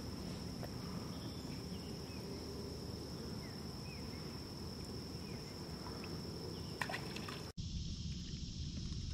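Quiet river ambience: water lapping, with a steady high-pitched drone and a few faint chirps. A couple of clicks come near seven seconds, then the sound drops out for an instant.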